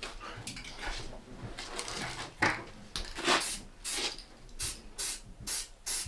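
Aerosol spray can of gloss black paint hissing in a series of short bursts, laying a gloss coat over primed model car bodies.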